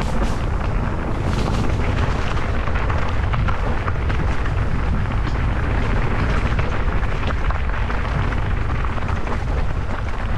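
Wind buffeting a camera microphone on a moving mountain bike as a heavy, steady rumble, with scattered clicks and rattles from the bike and trail.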